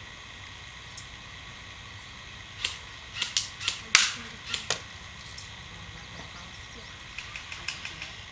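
Airsoft guns firing: a quick run of about eight sharp snapping shots a few seconds in, then a fainter, more distant run of shots near the end.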